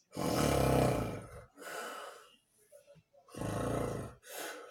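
A sleeping person snoring loudly: two snores about three seconds apart, each about a second long with a low, rough rumble, followed by a shorter, quieter breath.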